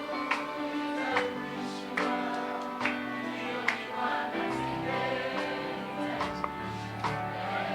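Gospel worship music with choir singing over a steady beat, a little more than one beat a second.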